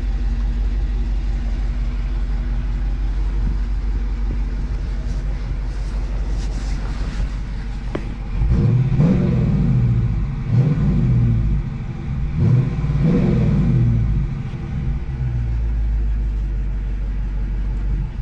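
Dodge Hemi V8 engine idling with a steady rumble, then revved several times in quick succession in the second half, each rev rising and falling back to idle.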